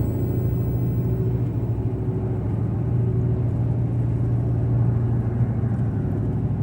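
Steady low rumble of a vehicle running, with no changes in pitch or level.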